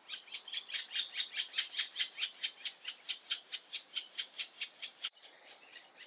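Black woodpecker nestlings in the tree hole begging: a fast, even series of short raspy calls, about six a second. The calls drop in level about five seconds in and go on fainter.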